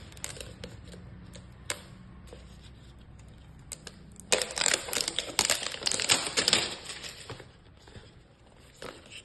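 Wrapping on a small gift item being opened by hand: scattered clicks and taps, then from about four seconds in a dense spell of crinkling and tearing lasting about three seconds, easing off near the end.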